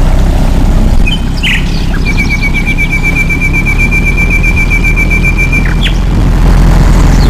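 A bird sings a rapid, even trill on one pitch for almost four seconds, starting about two seconds in, after a short call about a second in. Under it runs a loud, steady low rumble.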